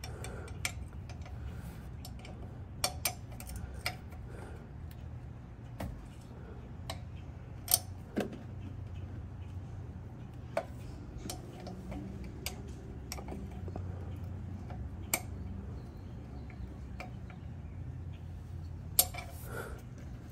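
Scattered light metallic clicks and taps from a wrench being handled at a rear drum brake's bleeder valve, over a steady low hum.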